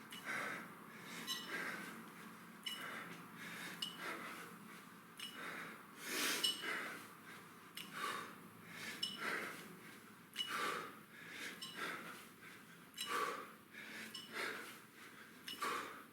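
A person breathing hard while doing kettlebell snatches, with a short forceful exhale on each rep, roughly one every second to second and a half.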